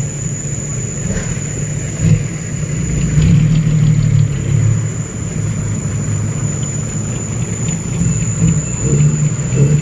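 Loaded diesel dump truck driving, its engine running louder from about three seconds in, then easing back.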